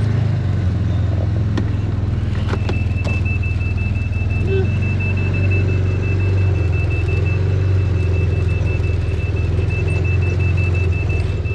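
Side-by-side UTV engine running steadily with a low hum. About two and a half seconds in, a high, rapidly pulsing beep starts and keeps going over the engine.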